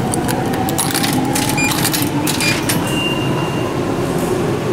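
Coins dropping into a snack vending machine's coin slot: a quick run of metallic clinks and rattles over about two and a half seconds, followed by a short high tone about three seconds in.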